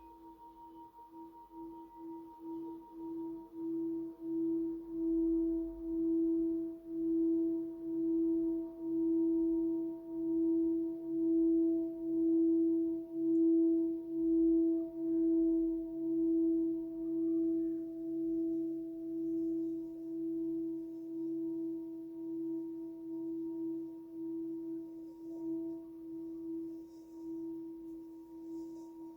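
Himalayan singing bowl rubbed around its rim, giving one sustained tone that wavers in a slow pulse of about one beat a second. It swells gradually to its loudest about halfway through, then slowly fades.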